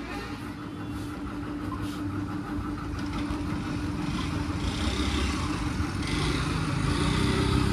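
A motor vehicle engine running steadily: a low rumble with a steady hum, growing gradually louder.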